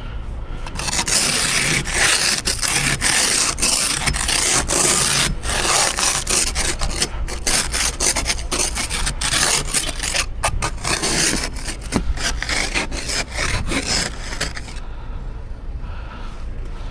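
Snow and ice being scraped off a car in quick, repeated, rasping strokes, stopping near the end.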